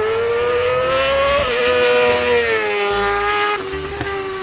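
Racing motorbike engine sound, revving up to a high whine about a second and a half in, then slowly easing back down.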